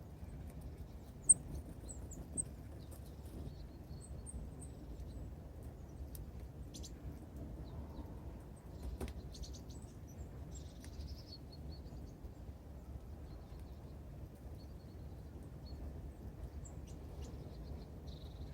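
Small songbirds calling with short, high chirps, scattered through, the loudest about a second in, over a steady low outdoor rumble. A few faint taps come around the middle.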